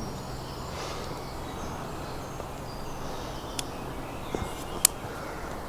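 Outdoor background noise at the water's edge, steady, with two sharp clicks about three and a half and five seconds in, the second louder.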